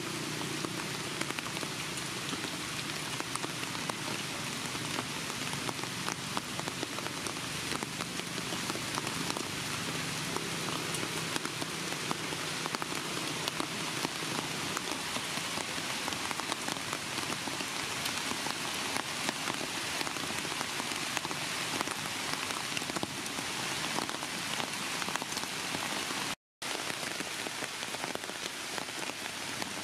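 Steady rain falling, a dense even hiss full of fine drop ticks. A low hum sits under it in the first half and fades out about halfway through; the sound cuts out completely for a moment near the end.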